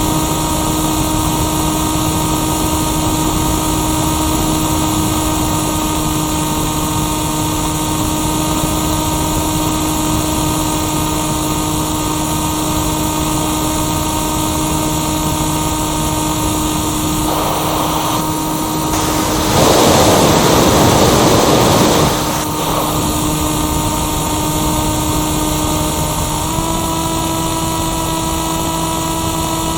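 Electric motor and propeller of a Firstar 2000 RC motor glider heard onboard, running with a steady whine. About twenty seconds in, a loud rush of noise covers it for two to three seconds, and near the end the pitch steps up slightly as the motor speeds up.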